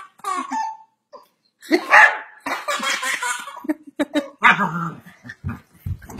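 A dog barking, a series of short barks.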